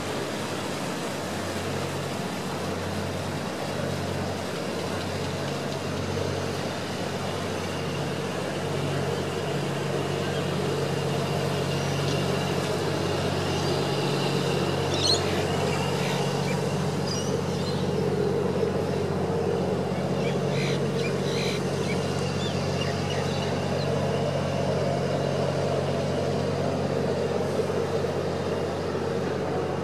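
Low, steady engine hum of a river cruise boat pulling away across the river, growing stronger about halfway through, with a few short bird calls in the middle.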